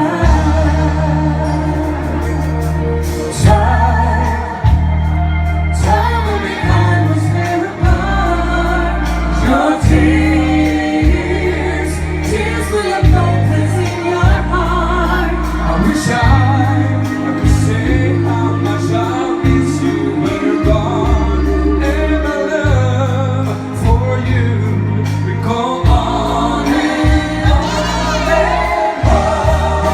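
A band playing a slow pop ballad, with sustained bass notes under sung vocals.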